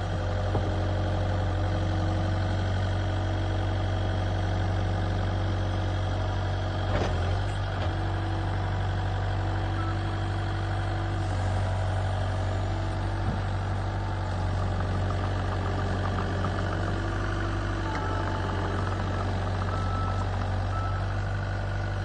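2008 Bobcat T320 compact track loader's diesel engine idling steadily, with a brief click about seven seconds in.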